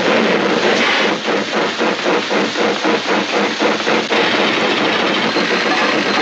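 Mechanical film sound effect: a run of rhythmic hissing chugs that quickens, then merges into a steady loud rush about four seconds in.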